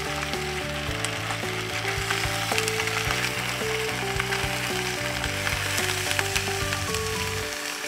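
Whole cleaver wrasse sizzling as they fry in oil in a nonstick frying pan, a steady hiss with small crackles. Background music with a bass line plays over it, the bass dropping out near the end.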